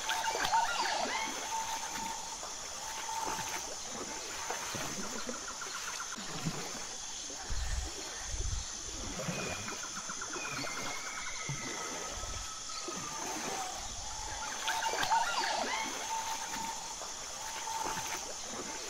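Designed alien-jungle ambience: water splashing and trickling, layered with chirping and whistling animal calls and a steady high-pitched whine. A few low thuds fall in the middle, and the chirping bunches up near the start and again near the end.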